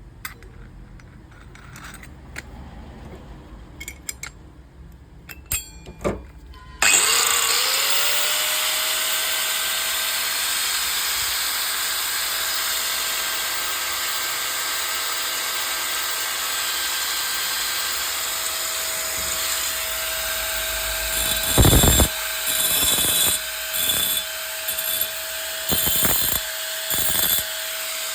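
A few small handling clicks, then about seven seconds in an INCO 960 W 4-inch angle grinder switches on, spins up and runs steadily at a high whine. Near the end, a handful of short, louder bursts break in over the running motor.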